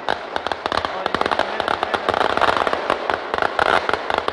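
Firecrackers going off in a rapid, unbroken run of sharp cracks, many per second.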